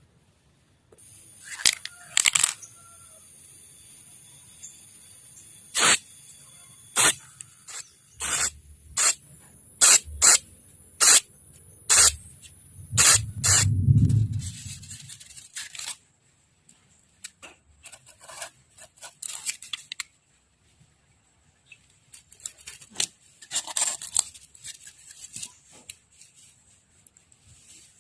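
Handwork noises: a run of sharp clicks or taps, roughly one a second, then bursts of scraping.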